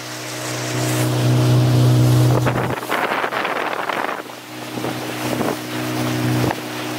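Speedboat engine running at a steady hum while the boat moves across open water. About three seconds in, a rush of spray and wind noise covers it and the engine note drops away, then it comes back for the rest.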